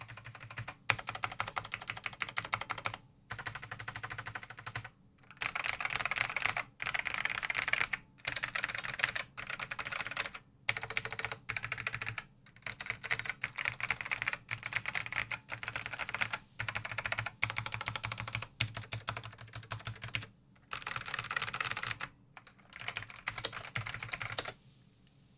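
Typing on a new-old-stock 1990 Dell AT102W mechanical keyboard with black ALPS SKCM 'bamboo' switches and ABS keycaps. Fast runs of keystroke clicks come in bursts of one to three seconds, broken by short pauses, and stop just before the end.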